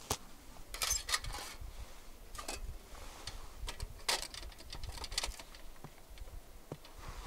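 Irregular sharp clicks and crunches, bunched in a few louder clusters, over a faint low rumble.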